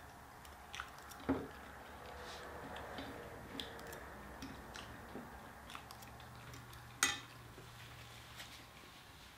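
Eating sounds: plastic forks scraping and tapping in takeout containers, with chewing. Small ticks throughout, with a sharp clack about a second in and a louder one about seven seconds in.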